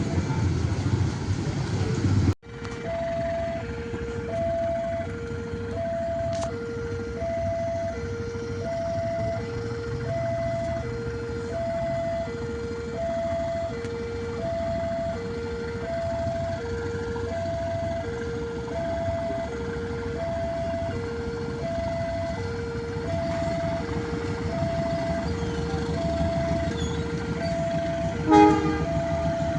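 Railway level crossing warning alarm sounding: an electronic two-tone ding-dong repeating about once a second, over a low rumble of waiting engines. The sound cuts out for a moment about two seconds in, and a brief sharp chirp stands out near the end.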